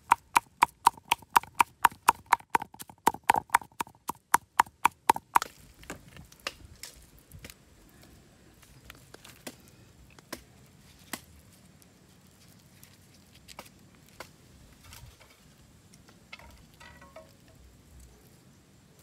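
Cleaver chopping minced snake meat and leaves on a thick wooden chopping board: rapid, even strikes about four to five a second that stop about five seconds in, followed by only scattered faint taps.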